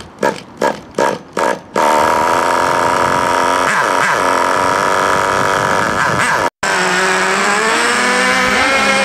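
Small glow-fuel nitro engine of a 1/8 RC buggy being cranked over in about five quick strokes, catching about two seconds in and running at a steady high idle. After a brief break near two-thirds through, the engine note rises and falls as the buggy drives off under throttle.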